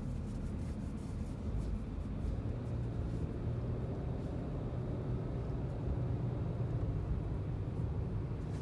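Steady low rumble of a car driving, its road and engine noise running evenly throughout.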